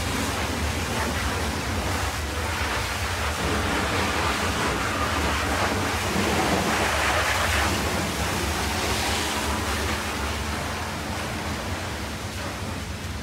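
High-pressure water jet from a pressure washer lance blasting mud off a dump truck's steel chassis frame: a steady hiss of spray striking metal, with a low steady hum underneath, easing a little near the end.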